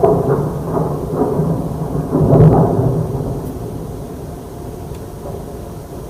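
Loud, low rumbling drone with a groaning edge, of the kind reported as a mysterious sky noise. It swells at the start, is loudest about two and a half seconds in, then slowly fades.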